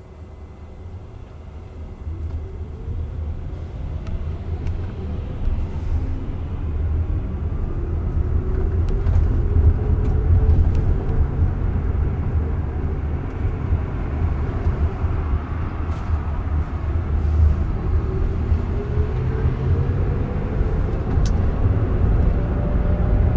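Inside the cabin of a Jaguar I-PACE electric car pulling away and gathering speed: road and tyre rumble grows louder over the first several seconds, then holds steady. A faint electric-motor whine rises in pitch as it accelerates, and rises again near the end.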